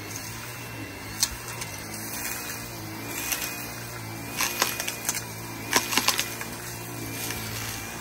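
Dyson Gen5 cordless stick vacuum running steadily with a high whine, its floor head sucking up sand and grit. Grains click and rattle up the wand, in scattered bursts that are thickest around the middle.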